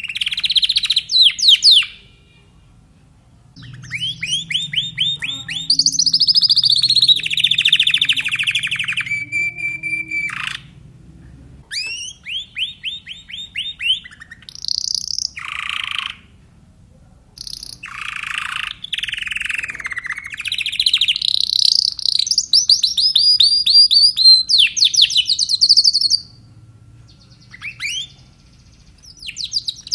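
Spanish Timbrado canary singing: phrases of fast repeated notes and rolling trills, with rising and falling glides, broken by pauses of a second or two.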